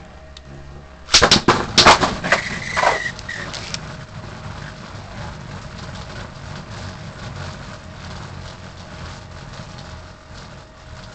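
Synchrome Beyblade spinning tops with metal wheels clashing in a plastic Beyblade stadium. A flurry of sharp clacking hits comes about a second in, with a brief ringing, then the steady whir and light rattle of the tops spinning across the stadium floor.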